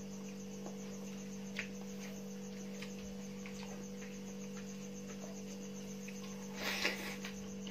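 Steady electrical hum with a faint, evenly pulsing high cricket chirp behind it. A few soft mouth and eating sounds from chewing by hand, the loudest a short smacking burst near the end.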